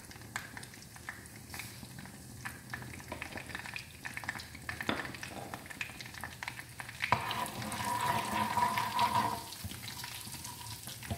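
Whole dried red chillies and cumin seeds sizzling and crackling in hot desi ghee in a small frying pan: the tempering (tadka) for dal. There are many small pops throughout, it is louder about two-thirds of the way in, and a spoon stirs the pan near the end.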